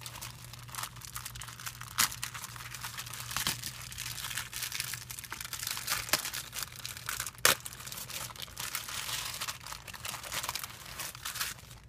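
Clear plastic cellophane gift bag crinkling and rustling as it is handled and opened and a paper box is slid out. There are sharper snaps about two seconds in and again about seven and a half seconds in.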